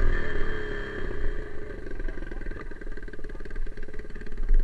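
Trail motorcycle's single-cylinder four-stroke engine easing off, its pitch falling over the first second, then running at low revs with a steady fast chug.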